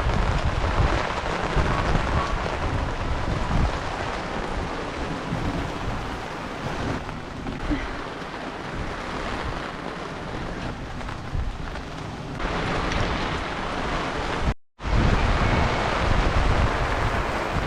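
Heavy rain pouring down steadily, with a deep low rumble underneath. It eases slightly in the middle, then cuts out completely for a split second about three-quarters of the way through before resuming just as heavy.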